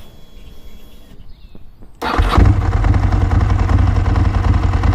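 Ducati 916's V-twin engine is spun over by the starter on a new lithium battery and fires up almost at once about two seconds in, then runs steadily.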